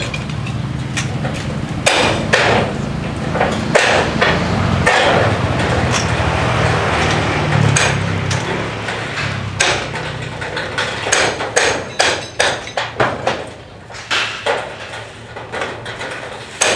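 Hammer blows and metal knocks on a rusty corrugated metal roof as its old sheeting is being torn off: irregular sharp strikes, several a second at times, over a steady low hum that fades about halfway through.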